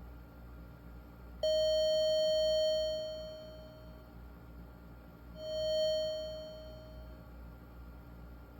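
Commodore 64's SID sound chip playing test notes through a small speaker. One bright note starts abruptly, holds for about a second and fades away. A few seconds later a second note at the same pitch swells up and fades, as the SID tester steps through envelope (attack and decay) settings. The owner judges the chip to sound pretty good.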